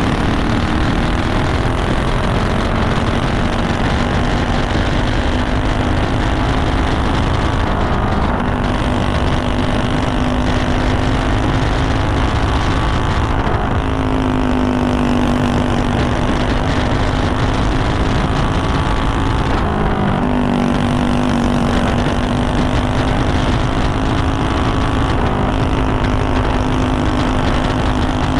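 Racing kart's single-cylinder engine running hard at high revs, its note dipping briefly about every five or six seconds in the corners of the dirt oval.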